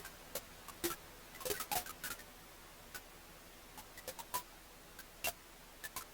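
Wood fire crackling in a fireplace: irregular sharp pops and snaps over a faint steady hiss, with a cluster of pops about one and a half to two seconds in and a louder snap a little after five seconds.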